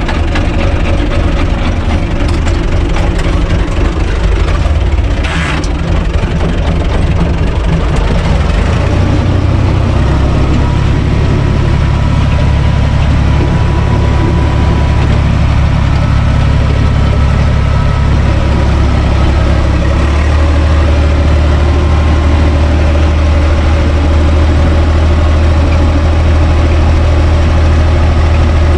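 UTB Universal 445 DT tractor's four-cylinder diesel engine running steadily as the tractor drives, heard loud from inside its cab. The engine's low note shifts about nine seconds in and strengthens again near twenty seconds.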